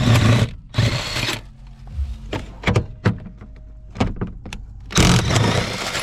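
Clunks, sharp clicks and scraping noise from handling parts inside a car's interior, with a few longer rustling bursts.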